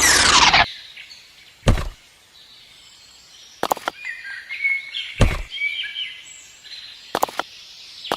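A quick falling whoosh, then four separate knocks and thuds a second or two apart, with short bird-like chirps in between.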